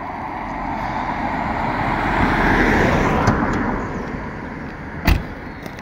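A road vehicle passing by: its noise swells to a peak about halfway through, then fades. A single sharp click near the end.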